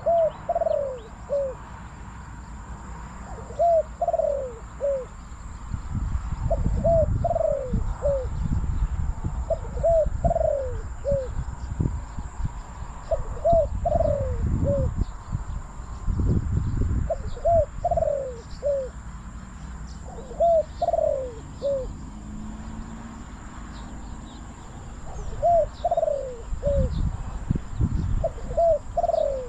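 Spotted dove cooing a short three-note phrase over and over, about every three to four seconds. Gusts of wind rumble on the microphone now and then, and small birds chirp faintly in the background.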